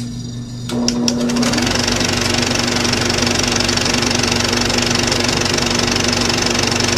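A small machine starts up with a few clicks about a second in, then runs steadily with a constant hum and a rapid, even clatter.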